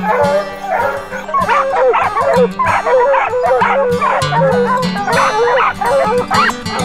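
Dogs barking treed without a break, rapid overlapping barks and yips, with a mountain feist among them: the sign of a black bear bayed up a tree. A music track plays underneath.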